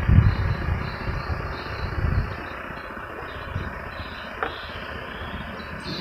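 Outdoor ambience of a steady hiss with insects chirring in a pulsing rhythm, several low bumps in the first couple of seconds, and one short click about four and a half seconds in.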